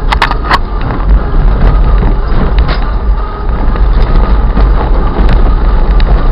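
A vehicle driving over rough, unpaved ground, heard from inside the cab: steady loud engine and road noise. A few sharp knocks come in the first second.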